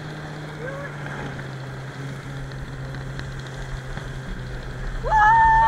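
Snowmobile engine running steadily under a constant rush of noise. About five seconds in, a person lets out a loud, long held yell that drops in pitch as it ends.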